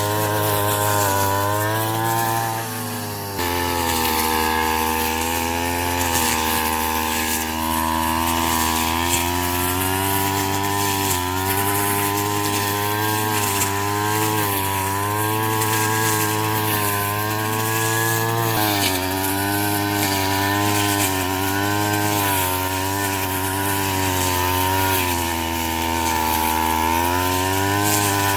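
Small two-stroke engine of a handheld brush cutter running at high speed while cutting rice straw, its pitch dipping and recovering as the blade takes load.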